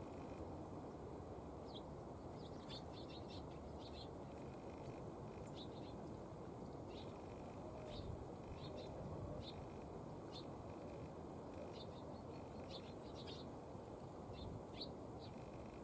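Eurasian tree sparrows chirping: short, high chirps, some single and some in quick runs, which are densest about three seconds in and again near the end. A faint, steady low rumble lies underneath.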